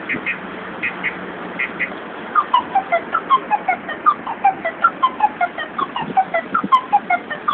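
Beatbox-style car alarm siren playing its tone sequence: short double beeps repeating a little faster than once a second, then about two seconds in it switches to rapid falling chirps, about three a second.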